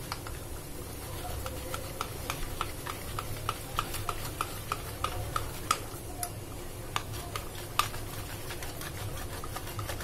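Wire whisk beating a thick gram-flour and curd batter in a bowl, the wires clicking lightly against the bowl about three times a second, with the strokes thinning out in the last few seconds.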